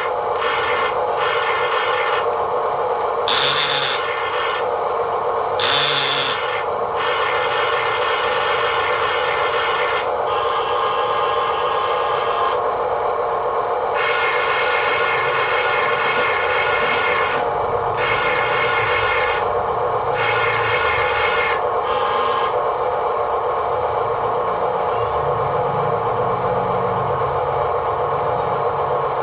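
Small electric motor and gearbox of a toy construction vehicle whining steadily, with repeated bursts of rasping hiss layered on top.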